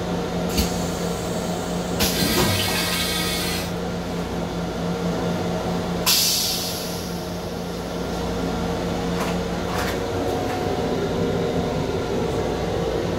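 M7 rail car toilet flushing. Water rushes into the stainless steel bowl for about two seconds, then a few seconds later a sudden loud rushing hiss sets in and fades away, over a steady low hum.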